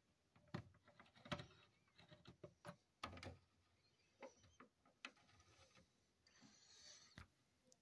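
Faint, scattered clicks and light knocks of the plastic throttle levers on model-train power packs being worked by hand, with a soft rustle near the end.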